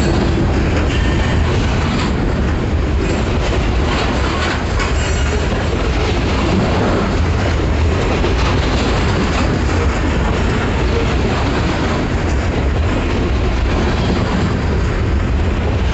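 Freight train cars, mostly covered hoppers, rolling past at close range: a steady, loud rumble of steel wheels on the rails.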